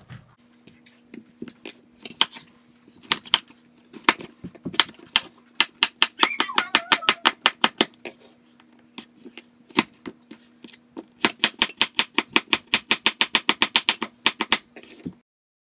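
Kitchen knife chopping peeled bottle gourd on a wooden cutting board. Separate knocks of the blade on the board speed up into a fast, even run of chops, about six or seven a second, over the last few seconds.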